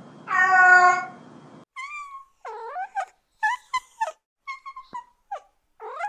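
An adult cat gives one long meow. Then a kitten mews over and over in short, high-pitched calls.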